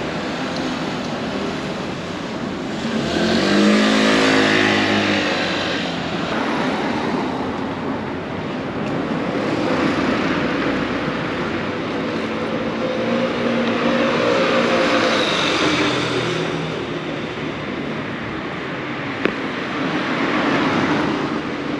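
Street traffic with several vehicles passing one after another. The loudest pass is about three to five seconds in, where an engine's pitch can be heard shifting. There is a single sharp click near the end.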